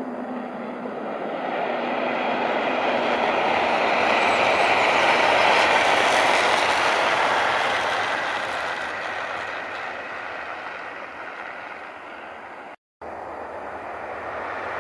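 A passenger train passing at speed: its running noise swells to a peak about six seconds in, then fades away. After a sudden short dropout near the end, another train's noise starts to build.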